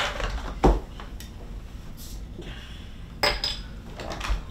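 A glass beer bottle being handled on a wooden table: a few sharp knocks and clinks, one at the start, one shortly after, one about three seconds in with a brief glassy ring, and a smaller one near the end, with quiet rustling of a person shifting in a chair between them.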